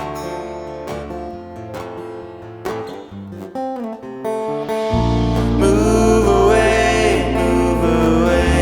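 A band playing an instrumental passage of a song: single picked guitar notes, then about five seconds in the bass and the rest of the band come in and the music gets louder.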